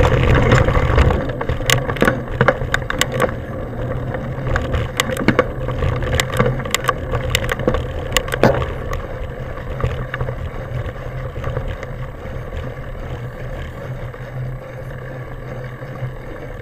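Mountain bike ridden fast along a dirt trail: a steady rush of wind and tyre noise, with frequent rattling clicks and knocks as the bike goes over bumps. One sharper knock comes just past the middle. The noise is loudest at the start and eases off toward the end as the trail flattens.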